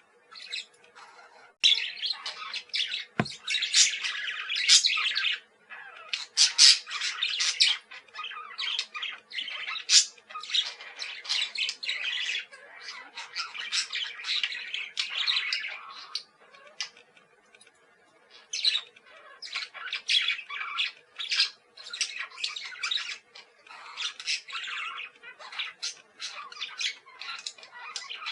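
Several parakeets calling, with rapid, overlapping high-pitched calls in bursts and a lull of about two seconds a little past halfway. A single sharp click sounds about three seconds in.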